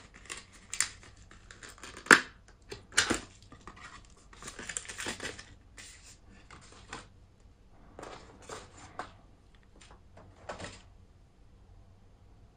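Hands handling a clear plastic hard-shell phone case and its paper and cardboard inserts: scratchy rustling of card and paper sliding against the plastic, broken by sharp clicks and taps. The loudest clicks come about two and three seconds in, and a longer rustle follows.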